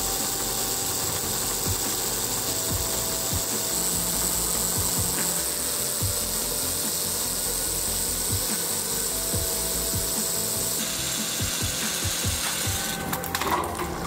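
A motorized LEGO Technic Batmobile running on a moving treadmill: a steady mechanical whir of motor, plastic gears and treadmill belt, with scattered ratcheting clicks. Near the end the steady tone stops and a run of sharper clicks and knocks follows.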